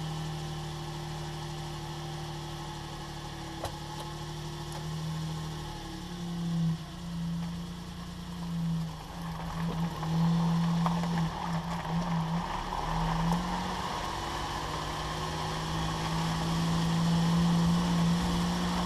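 Suzuki Jimny JA22W's drivetrain running with a steady, low hum that wavers and breaks up for several seconds in the middle, then settles again. This is the abnormal metallic noise that the owner traces to the propeller shaft joint.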